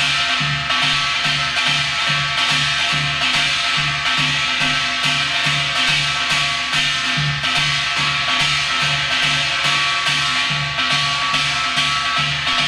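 Korean shaman-ritual drumming: a janggu hourglass drum playing the fast hwimori rhythm of Gyeongsang-do gut, deep strokes about two to three a second with sharp stick strokes between them.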